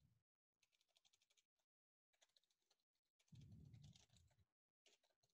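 Faint computer keyboard typing, several quick runs of key clicks as a word is typed in, with a soft low sound about three and a half seconds in.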